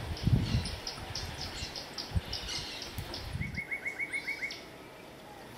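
Wild birds chirping: a run of short high chirps, about three or four a second, with a quick series of about eight lower notes about three and a half seconds in. A few low thuds sound under them, the loudest near the start.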